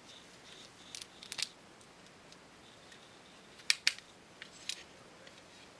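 Sharp plastic clicks of Lego pieces as Lego axles are loaded into a Lego revolver's cylinder: a few light clicks about a second in, a pair of louder clicks a little past the middle, then two lighter ones.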